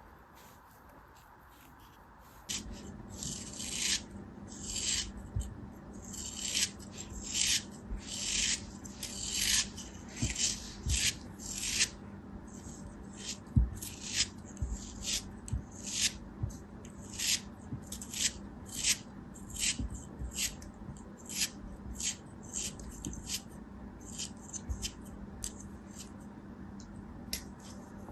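Short rasping scrapes repeated in quick strokes, about two a second, as a tool scrapes or cuts through a crumbly material, over a faint low steady hum. The scraping starts a couple of seconds in.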